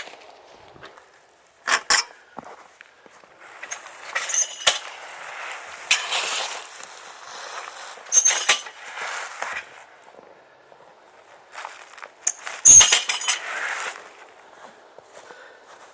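Irregular metallic clinks and rattles with bursts of rustling, from trampoline parts being handled and taken apart.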